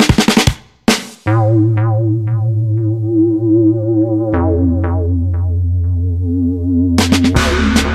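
Electronic background music: a few sharp drum hits in the first second, then a held synthesizer chord with a wavering pitch over a steady bass that steps lower about four seconds in. Drums come back in near the end.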